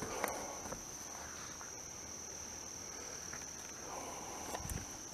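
A steady, high-pitched trill of night insects, with a few faint clicks.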